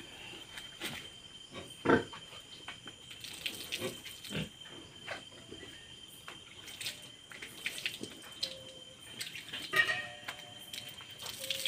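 Sow and newborn piglets in a farrowing crate grunting, with short squeaks near the end. Scattered knocks, the loudest about 2 s in, and water sloshing in a basin as the piglets are handled.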